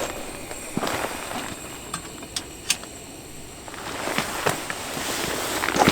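Wood fire crackling, with scattered sharp pops over a steady hiss.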